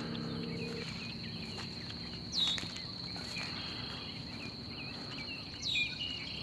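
Outdoor nature sound at the water's edge: a steady high insect trill underneath, with bird calls on top. A sweeping, falling call comes about two and a half seconds in and again near the end, and short chirps are scattered between them.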